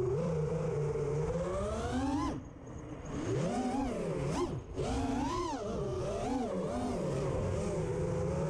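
FPV racing quadcopter's brushless motors and propellers whining, the pitch rising and falling with the throttle. About two seconds in the pitch climbs sharply, then the throttle is chopped and it goes quieter for about a second before powering back up. There is another short drop about four and a half seconds in.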